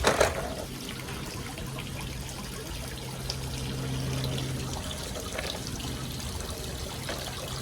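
Water from a sprinkler trickling and splashing into a small pool, steady throughout, with a sharp splash right at the start as a toy truck drops into the water.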